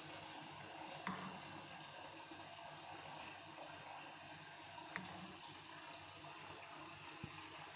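Faint wet sounds of a spatula stirring thick béchamel sauce in a bowl, with three light clicks of the spatula against the bowl.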